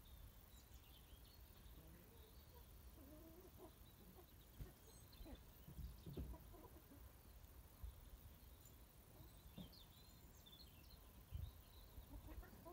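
Chickens clucking faintly now and then, with a few soft low thumps.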